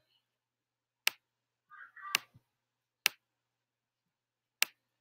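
Four sharp clicks spread about a second apart as a word is handwritten stroke by stroke on a digital whiteboard, with a faint short higher sound near two seconds in.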